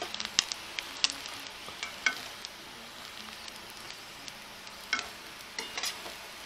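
Hot coconut oil sizzling steadily in a frying pan, with a few sharp knocks of a utensil against the pan.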